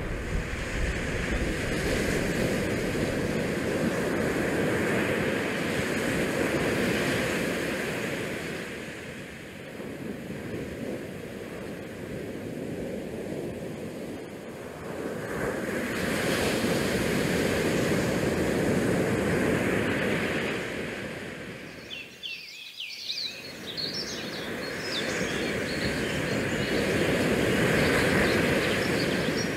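Wind rushing over the microphone on the open top deck of a ship at sea, swelling and easing in long gusts, with a couple of quieter lulls.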